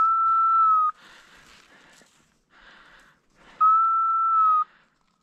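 Dog whistle blown in two steady, single-pitched blasts of about a second each, the second about three and a half seconds after the first, used to signal a working English pointer.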